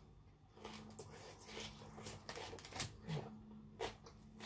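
A person chewing a mouthful of food with the mouth closed, close to the microphone: a string of short wet mouth clicks and smacks, several of them sharp.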